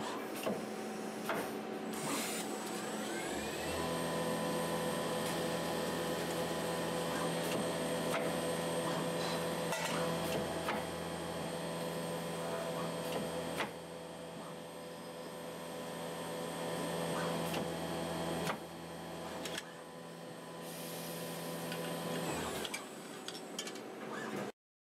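CNC turret lathe at work on bar stock, turning, drilling and parting off. The spindle whine rises in pitch about three seconds in, then holds steady under cutting noise and coolant spray, with scattered clicks. It dies away near the end and cuts off.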